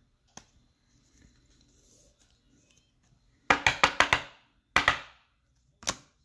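Sharp clicks and knocks from trading cards being handled on a table: a quick run of about five clicks about three and a half seconds in, then two single knocks about a second apart.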